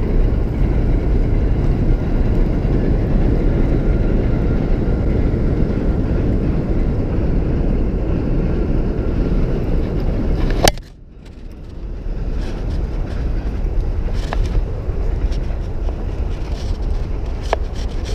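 Wind buffeting the camera's microphone, a steady loud rumble. About ten and a half seconds in there is a click and a sudden lull, and then the rumble builds back up.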